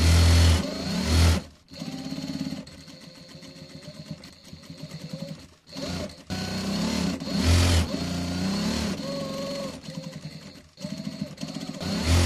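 Electric sewing machine stitching binding tape along a canvas seam. It runs in several bursts with short pauses, and the motor's pitch rises and falls as its speed changes.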